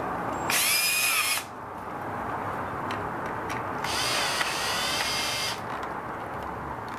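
Cordless drill/driver running in two short bursts as it drives the screw into the serial number plate on the grinder's base: a brief run about half a second in and a longer one around four seconds in, each a motor whine.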